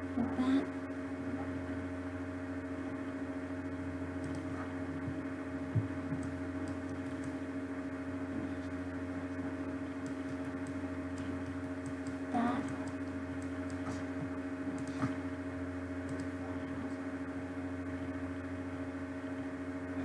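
Steady electrical hum made of several constant tones over a low drone, the background noise of a computer screen recording. There is a faint click about six seconds in and a brief faint sound near twelve seconds.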